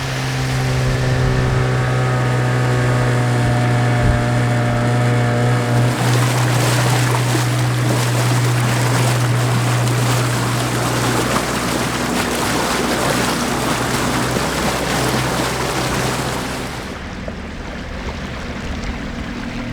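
A boat's motor running at a steady speed, a low even hum under loud rushing wind and water noise. The rushing drops off sharply near the end and the hum fades.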